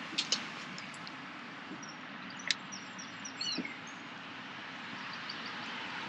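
Steady outdoor background rumble with a few sharp clicks, and a small bird chirping in a short quick series about three seconds in.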